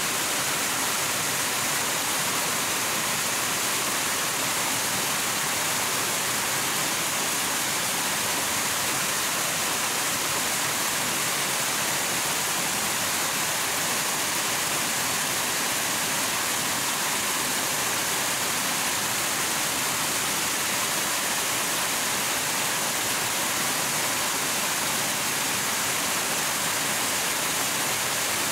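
Steady rushing water: an even, unbroken hiss, strongest in the high range.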